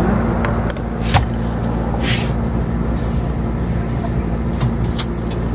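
A steady low engine-like hum, with a few sharp metallic clicks and knocks from dismantling a refrigerator and a short hiss about two seconds in.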